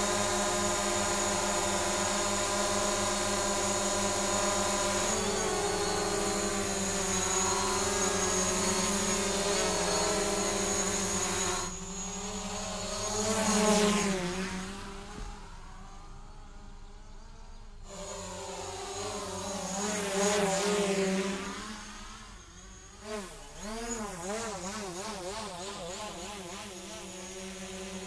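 Multirotor drone in flight: its motors and propellers give a steady buzzing hum that swells twice as it comes close, and near the end the pitch wobbles rapidly up and down.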